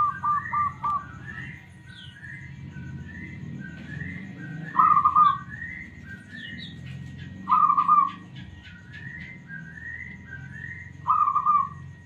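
Zebra dove (perkutut) cooing: a quick run of short staccato notes ends about a second in, then three short rolling coos come about three seconds apart. A softer note from another bird repeats steadily behind it, with a few high chirps in the middle.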